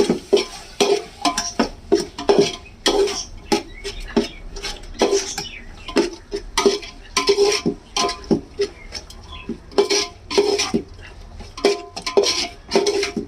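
Metal ladle stirring chicken and masala in a metal cooking pot, clanking and scraping against the sides about twice a second with a short metallic ring, mixing in the just-added chilli powder.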